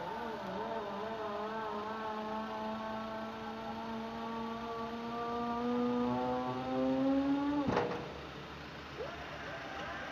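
A pitched motor whine wavers for a moment, then holds steady and slowly rises in pitch. It cuts off abruptly with a clunk about three-quarters of the way through, leaving a fainter background hum.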